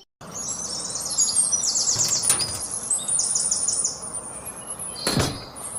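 Small songbird calling in two quick runs of high, rapidly repeated chirps over steady outdoor background noise, with a short sound sweeping down in pitch near the end.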